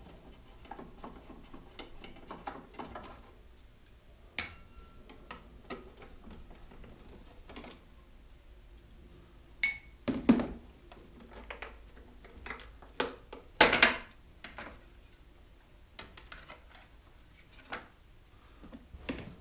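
Hand-tool work on a mobility scooter's tiller as its cover screws are undone with a screwdriver. Small ticks in the first few seconds give way to scattered clicks and knocks of metal and plastic parts being handled. There is a sharp metallic clink about four seconds in, another with a brief ring near ten seconds, and the loudest knocks fall around ten and fourteen seconds.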